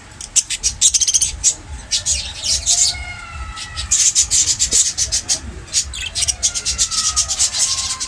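Caged small parrots, budgerigars and lovebirds, chattering in rapid, shrill chirps, with a couple of thin falling whistles about three seconds in and again near the end.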